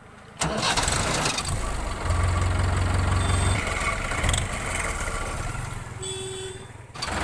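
Mahindra Yuvo 575 DI tractor's four-cylinder diesel engine starting on the key about half a second in, then running, louder between about two and three and a half seconds in and dipping briefly near the end.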